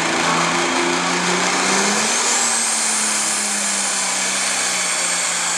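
International Harvester super stock pulling tractor's turbocharged diesel engine running at full power under load while pulling the sled. A high turbo whistle climbs about two seconds in and falls away near the end.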